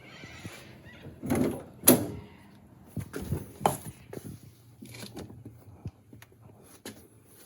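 Irregular knocks, clunks and rustling of car interior parts being handled and pulled loose, with the loudest clunk about two seconds in.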